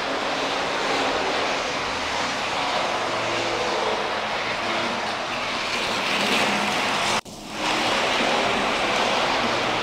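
Electric model train running on its track, a steady whirring rumble of wheels on rails with a faint motor hum. The sound cuts out abruptly about seven seconds in and swells back within half a second.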